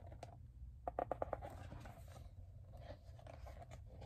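Hands handling a large hardcover picture book while a page is turned: faint paper rustling, with a quick run of small clicks and taps about a second in.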